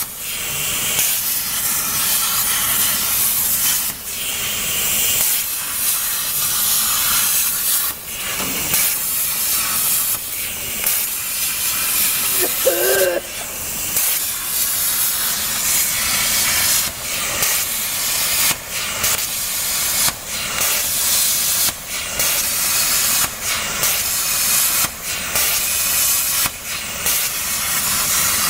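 CNC plasma cutter torch cutting 2 mm galvanized sheet: a loud, steady hiss of the plasma arc and air jet. The hiss dips briefly every few seconds as the arc stops and restarts between separate cuts of the pattern. A short squeal comes about halfway through.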